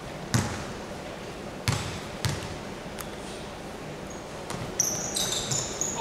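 A basketball bounced a few times on a hardwood gym floor, with separate thuds echoing in the large hall. Near the end come several short, high-pitched sneaker squeaks on the court.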